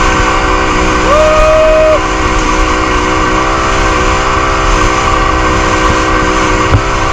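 An engine running steadily, with a horn sounding once for about a second, about a second in.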